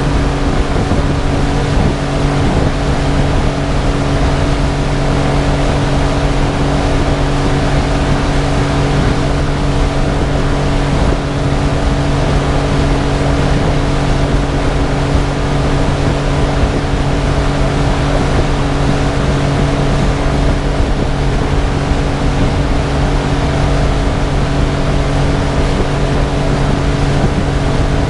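Outboard motor on a small aluminium boat running at a steady speed, an even hum that holds without change.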